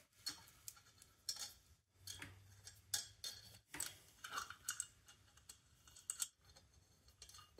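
Quiet, irregular metallic clicks and taps as lug nuts are threaded by hand onto the studs of an ATV wheel hub.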